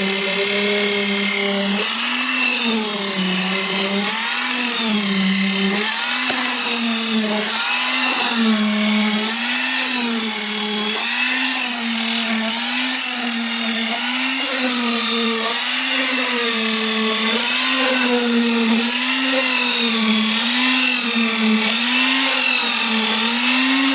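Electric concrete vibrator running in freshly poured concrete, a steady motor whine whose pitch wavers up and down every second or so. It is consolidating the pour and driving the air voids out.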